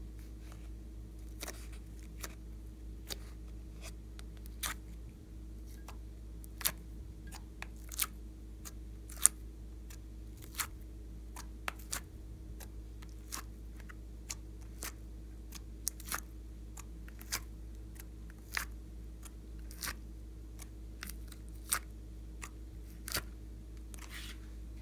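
Plastic ice cube tray clicking and cracking as slime cubes are pushed out of it one by one, in irregular sharp clicks about once a second.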